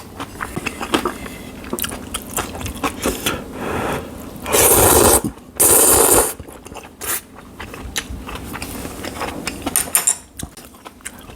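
Close-miked eating of jjamppong ramen: wet chewing with many small clicks and smacks, and two loud slurps, each under a second, about four and a half and five and a half seconds in.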